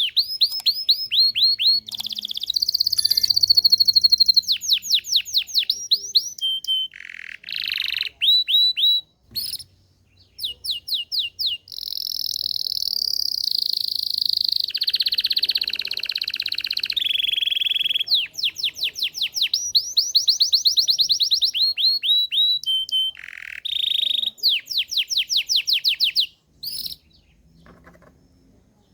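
Belgian domestic canary singing a continuous song: fast trills of rapidly repeated sweeping notes, alternating with longer buzzy rolls, stopping shortly before the end.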